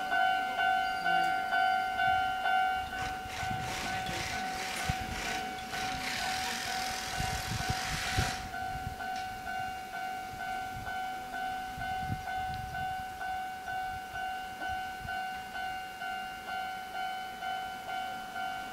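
A Japanese level crossing's electronic warning bell dings in a steady, quick repeating rhythm. An Enoshima Electric Railway train rattles through the crossing for about five seconds, with wheel thumps near the end of its pass. The rattle cuts off about eight seconds in, and the bell carries on alone.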